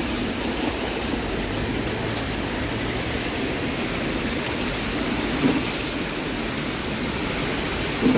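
Rainwater runoff rushing over and into a street storm drain grate partly clogged with litter, with heavy rain falling; a steady, even wash of water noise.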